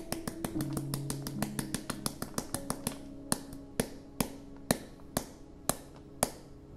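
Chocolate chips in a flour mixture tinking into a stainless steel mixing bowl as it is poured: quick sharp clicks that thin out to about two a second in the second half, each ringing briefly. Soft guitar music plays underneath and fades in the latter half.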